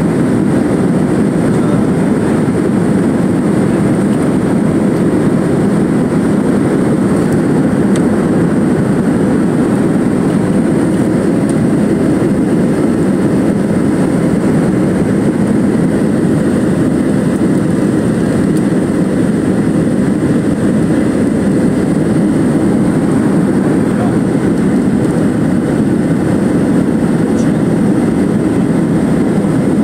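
Steady cabin noise of a jet airliner climbing after takeoff, with engine noise and airflow heard from a window seat over the wing. It is a loud, even, deep rumble with a faint thin high whine over it, unchanging throughout.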